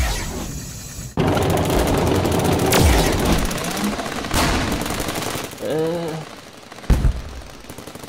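Cartoon battlefield sound effects: rapid machine-gun fire starting about a second in, punctuated by several heavy explosions. A short pitched cry comes through about six seconds in.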